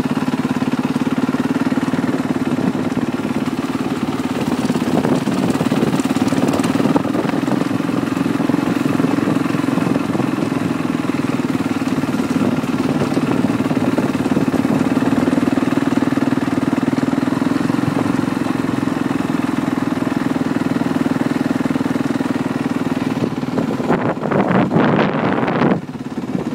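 Motocross dirt bike engines running at a fairly steady pitch, with a rougher, choppier stretch near the end before the sound drops off.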